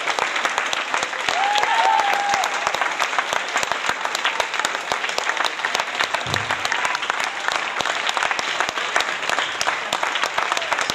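Audience applauding steadily with dense clapping, and a few voices calling out over it.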